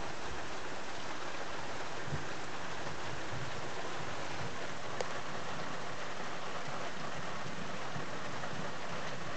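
Steady rain falling in a thunderstorm, an even hiss, with one sharp tick about five seconds in.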